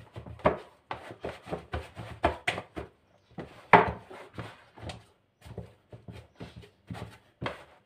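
A hand kneading soft, still-sticky yeast dough in a plastic bowl: short, irregular presses and slaps, several a second, with a couple of brief pauses.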